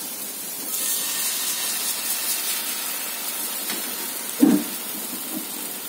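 Wheat-flour batter sizzling in hot ghee on a cast-iron griddle as it is spooned on and spread, a steady hiss that swells in the first two seconds. A brief knock about four and a half seconds in.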